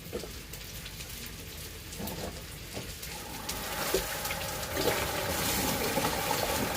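Tap water running as rice is rinsed, a hiss that builds up about two seconds in and grows louder, with a few light knocks.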